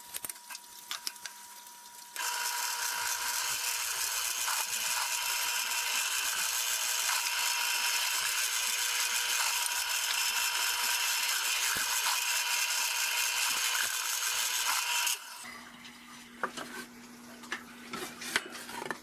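Drill press running and drilling small holes in wood, a loud steady whir and hiss that starts abruptly about two seconds in and stops sharply near the end, with a few small clicks and knocks around it.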